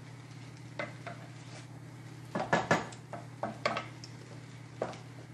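Wooden spatula knocking and scraping against an aluminium pot while stirring rice being sautéed, with a cluster of the loudest knocks about two and a half seconds in, over a steady low hum.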